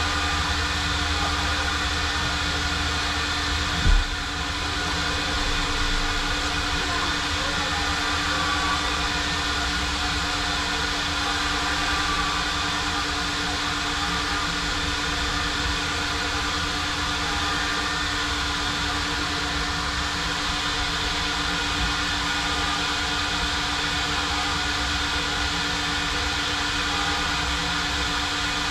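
Self-service car wash vacuum running steadily, a constant drone with a fixed pitch. There is a single sharp thump about four seconds in.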